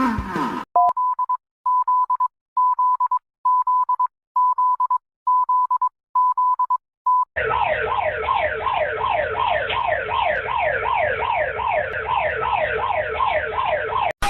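Emergency-alert-style (EAS) alarm tones: a single-pitch beep repeated about nine times at an even pace, then, from about seven seconds in, a rapidly repeating falling siren-like sweep.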